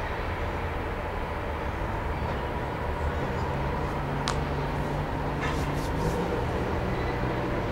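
Diesel locomotives running as they pull a passenger train at low speed: a steady low rumble, with an engine drone coming in about three seconds in. A short high squeal about four seconds in.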